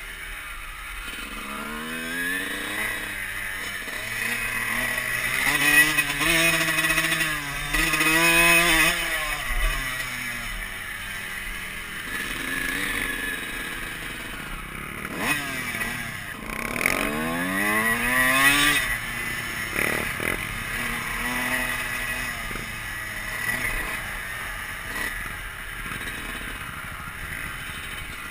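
Dirt bike engine heard from the rider's helmet, revving up and easing off again and again as the bike accelerates and shifts, its pitch rising and falling in sweeps, loudest about six to nine seconds in and again around sixteen to nineteen seconds.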